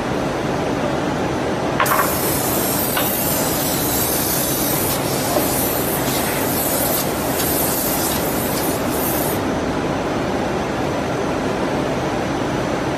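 Compressed air hissing from a CNC door stile shaping and drilling machine, starting with a click about two seconds in and cutting off suddenly some seven seconds later, over a steady hum of exhibition-hall noise.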